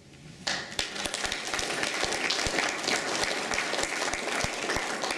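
Audience applauding at the end of a talk, many hands clapping, starting about half a second in.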